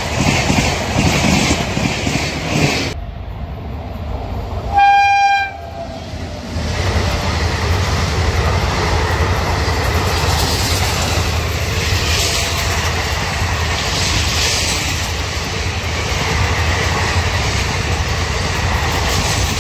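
Indian Railways train running past with rumble and rail clatter, cut off abruptly about three seconds in. A short single-note horn blast about five seconds in is the loudest sound. Then the steady rumble of a passing train runs on.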